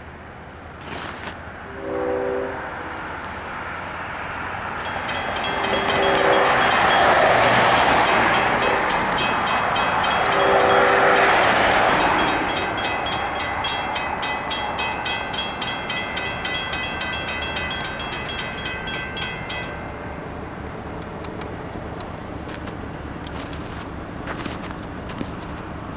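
LIRR EMD DE30AC diesel locomotive passing with its Nathan K5LL horn sounding: a blast about 2 seconds in, a short one a few seconds later and a long one as the train goes by. From about 5 seconds in, a first-generation WCH mechanical crossing bell rings in a steady run of rough-sounding strokes, stopping near 20 seconds.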